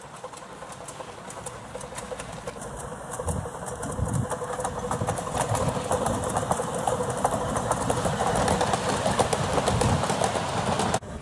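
Miniature steam locomotive hauling its passenger train past, growing louder as it approaches, with a rapid ticking clatter and a faint steady tone. The sound cuts off suddenly near the end.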